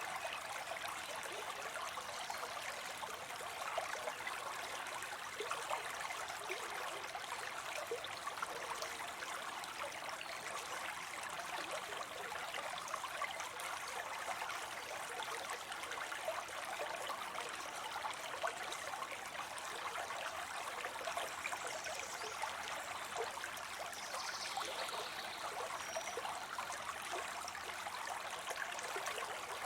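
Water spilling into a pond: a steady splashing trickle of falling water.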